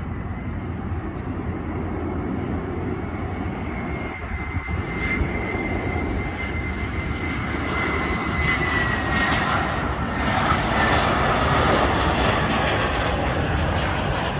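Twin-engine jetliner on landing approach, passing low overhead with its jet engines running: a steady high whine over a broad rush. The whine dips slightly in pitch about nine seconds in, and the engine noise grows louder near the end as the plane passes.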